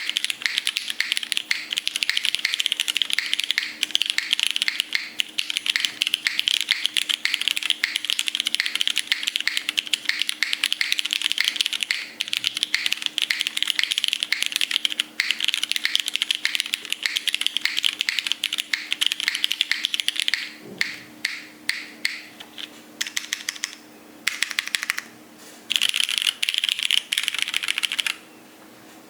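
Typing on a KOHAKU Silver keyboard: fast, continuous keystrokes for about twenty seconds, then a few scattered single key presses and one last quick run that stops shortly before the end.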